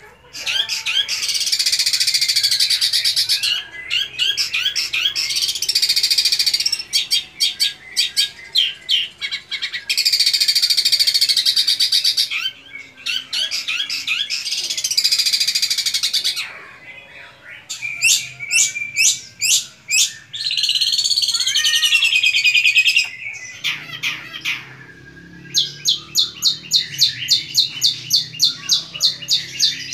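Caged long-tailed shrike (cendet) singing a loud, varied song. Long, fast, dense phrases break off with short pauses, and a slurred warbling phrase comes later. Near the end it switches to a run of sharp repeated notes, about three a second.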